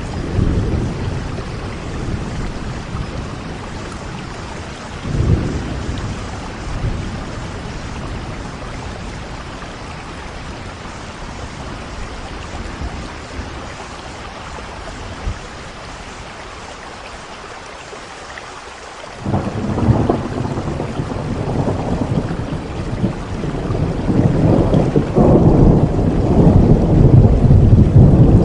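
Heavy rain falling steadily with thunder rumbling. A low roll of thunder starts suddenly about two-thirds of the way through and grows louder toward the end.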